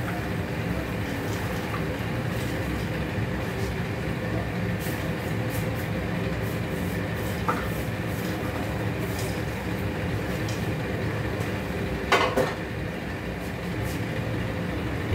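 Popped popcorn being emptied from a metal pressure cooker into a plastic bowl: faint light rattling and clicks as it is scooped and shaken out, and a sharper metal knock about twelve seconds in. A steady low hum runs underneath.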